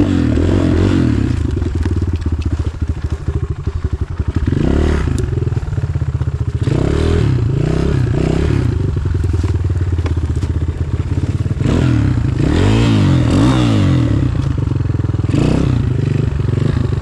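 Enduro motorcycle engine running under load, its revs rising and falling again and again as the bike is ridden over rough ground, with some clattering knocks.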